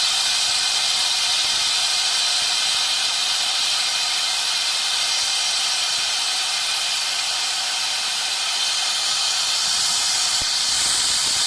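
CNC engraving machine's high-speed spindle and bit cutting brass: a steady high hiss with faint steady tones in it.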